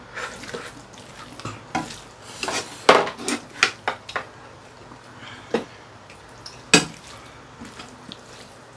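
A metal ladle clinking and scraping against a frying pan of braised chicken, with utensils knocking on dishes. The clinks come irregularly, loudest about three seconds in and again near seven seconds.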